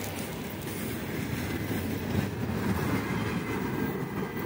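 Container flat wagons of a long freight train rolling past, their wheels on the rails making a steady low rumble that eases slightly near the end as the train moves away.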